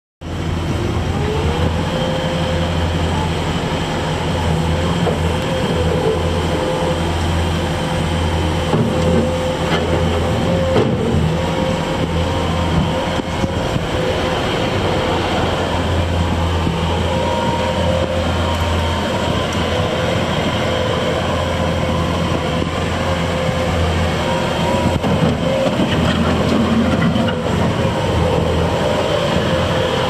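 Bobcat S650 skid steer loader's diesel engine running under load as the machine drives and turns on gravel, a steady low drone with a steady high whine over it that sets in about a second in.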